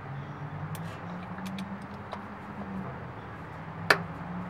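Oil filter cap wrench and bar clicking as they are fitted and worked on the tight oil filter housing of a Toyota 4Runner, with a few light clicks and one sharp click about four seconds in. A steady low hum runs underneath.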